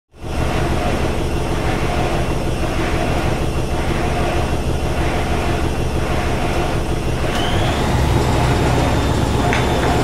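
Washing machine spinning fast: a loud, steady mechanical rumble with a swish about once a second as the drum turns. About three-quarters of the way through, a high motor whine rises and holds while the low rumble grows stronger.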